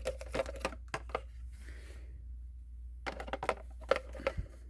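Light clicks and knocks of plastic vacuum-cleaner parts being handled, as a replacement motor is guided into a Dyson DC18's housing: a cluster of clicks, a pause of about two seconds, then another cluster.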